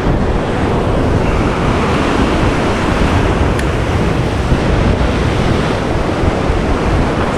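Rough sea surf churning and breaking against shoreline rocks, a steady loud rush of water, with wind buffeting the microphone.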